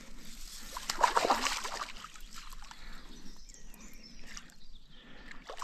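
Hooked fish splashing and thrashing at the water's surface close to the bank, with the loudest splash about a second in and smaller sloshing after.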